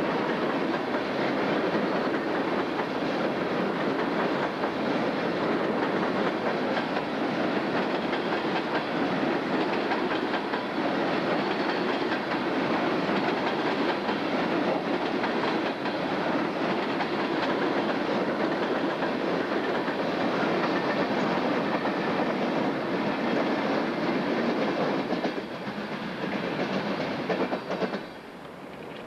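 Empty coal hopper cars rolling past over a railroad diamond crossing, their wheels clattering steadily. The clatter eases about 25 seconds in and falls away sharply near the end.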